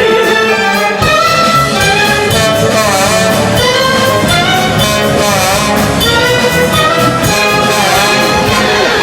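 Instrumental music with no singing: an orchestral break in a musical-theatre song, a melody carried over a full, continuous accompaniment.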